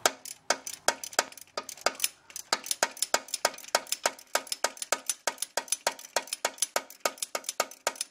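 Socket ratchet clicking in a long, even run as a starter mounting bolt is backed out. The clicks come about three a second at first, then quicken to about six a second after two seconds or so.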